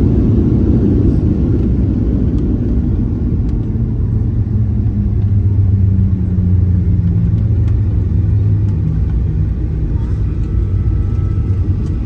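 Cabin noise of a Boeing 737-800 rolling out on the runway after touchdown: a steady low rumble of the wheels and engines. A deeper engine hum swells about four seconds in and fades away by about nine seconds.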